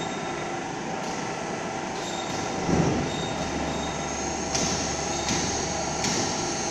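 Steady machinery noise with a few constant tones. There is a knock a little under three seconds in, then a low hum that comes in just after and stops about six seconds in.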